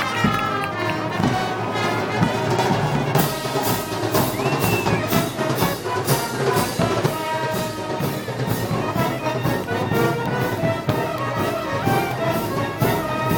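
Brass band music with trumpets and trombones playing a festival march; about three seconds in, percussion with cymbals comes in and keeps a steady beat.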